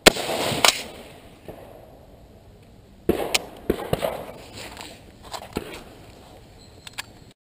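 Rifle shots from a Southern Gun Company lever-release, gas-piston AR-15 in .223: a loud, sharp crack at the start with a short echo, another crack about half a second later, and a second cluster of cracks about three seconds in, with a few smaller clicks after. The sound cuts off suddenly near the end.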